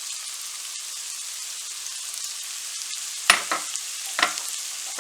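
Meat and onions sizzling in a heavy frying pan, with a steady hiss. Two sharp knocks come about three and four seconds in.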